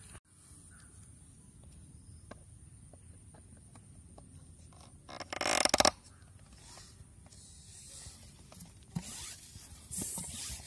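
A 2-litre plastic bottle being pumped full of air through a hose and valve: a faint steady hiss, one loud short rush of noise about five and a half seconds in, and scrapes and crinkles of the plastic bottle being handled near the end.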